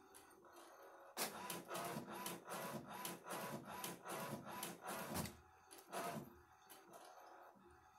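HP inkjet printer printing a page: the print-head carriage shuttles back and forth in quick even passes, about four a second, starting about a second in and stopping after about four seconds, with one more pass near six seconds. The cartridge's cleared nozzles are printing again.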